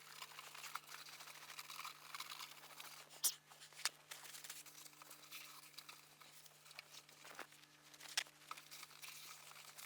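Hand scrubbing of a plastic headlight lens with an abrasive restoration compound: a faint, continuous scratchy rubbing, with a couple of sharp clicks about three and four seconds in, over a steady low hum.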